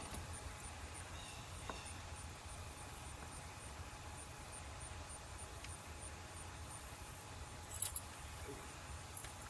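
Quiet background ambience: a steady low hum with a faint, even, high ticking about three times a second, and a brief rustle a little before the end.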